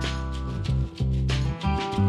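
Background music: a melody over held bass notes that change every half second or so.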